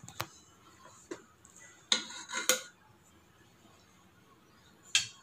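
Steel ladle clinking and scraping against a pressure cooker. There are a few sharp metallic knocks, the loudest about two seconds in, again half a second later, and once more near the end.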